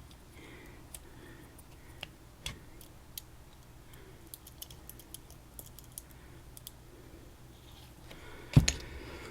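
Scattered small metal clicks and taps as a Mul-T-Lock Junior padlock is taken apart by hand, with one louder knock near the end.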